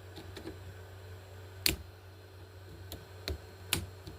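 A handful of sharp clicks and knocks, the loudest about a second and a half in and three more close together near the end, over a steady low hum.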